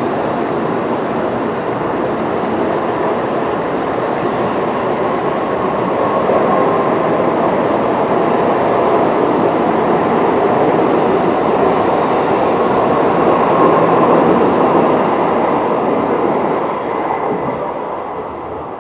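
Shinkansen train running: a steady rushing noise that swells in the middle and fades near the end.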